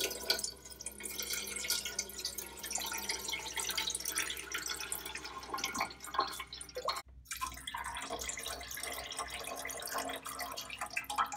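Chicken broth being poured through cheesecloth into a pot: liquid splashing and trickling in quick spatters and drips, with a brief break about seven seconds in.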